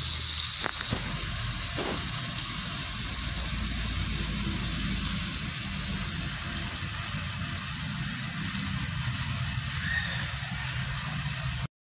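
Steady motor hum of a miniature DC-motor hand tractor driving slowly along. The hum stops abruptly near the end.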